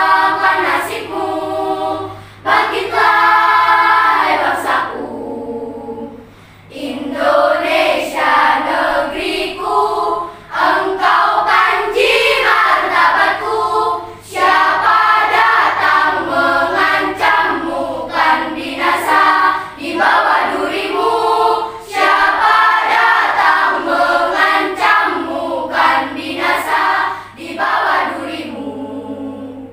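Children's school choir singing a song in Indonesian in unison, phrase by phrase with short breaks between lines; the singing stops right at the end.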